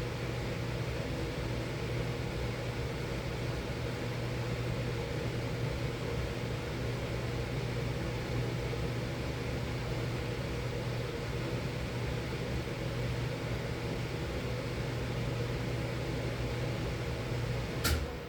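Miller E3 furnace running with a steady hum and the rush of its blower. A sharp click comes near the end, and the sound then dies away with a falling whine as the unit shuts off and the motor spins down.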